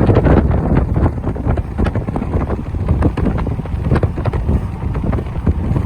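Wind buffeting the microphone of a moving car: a loud, low rumble that flutters and gusts unevenly.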